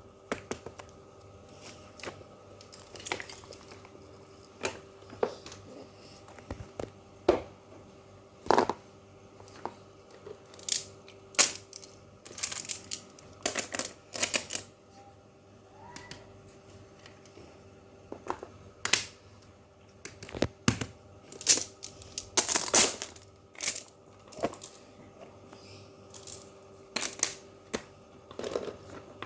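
Fidget toys being handled: irregular clicks, taps and short rustling scrapes, with a faint steady hum underneath.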